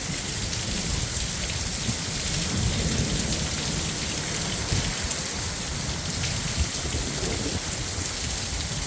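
Heavy thunderstorm rain pouring steadily, with a low, uneven rumble underneath.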